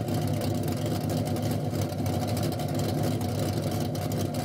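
Car engine idling steadily at an even, unchanging pitch.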